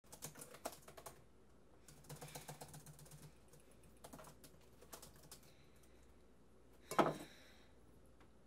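Typing on a laptop keyboard: faint runs of quick key clicks in several short bursts with pauses between, then one louder knock about seven seconds in.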